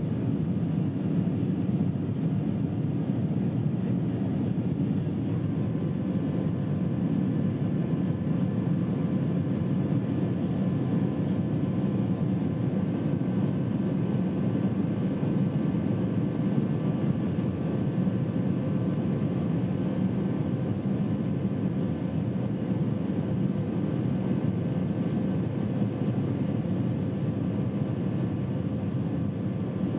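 Boeing 747 cabin noise in flight, heard from a window seat over the wing: a steady, deep rush of engine and airflow with faint steady engine tones above it.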